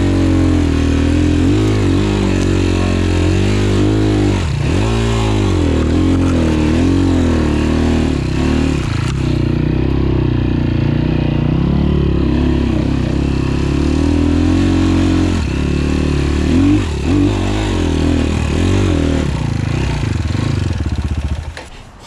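A 250 cc enduro dirt bike's engine runs under load on a trail climb, close to the rider, its revs rising and falling with the throttle. There is a deep dip about four seconds in and quick rev changes around 16 to 19 seconds in. The engine sound drops away just at the end.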